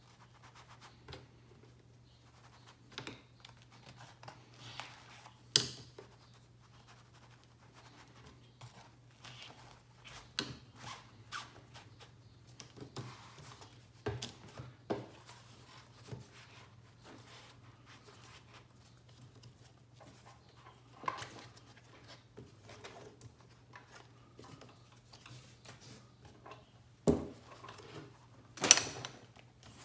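Nylon MOLLE webbing straps being pulled and worked through a pouch and a rigid panel: scattered rustling and scraping of fabric, with a few sharp knocks, the loudest near the end.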